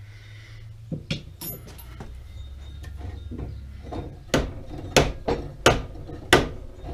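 A hammer striking a metal part: a couple of light clinks with a high ring about a second in, then a run of sharp, loud blows about every two-thirds of a second in the second half.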